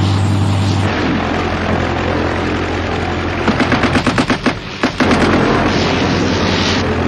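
First World War aircraft engine droning steadily, with a burst of machine-gun fire of about seven shots a second lasting about a second and a half, midway through.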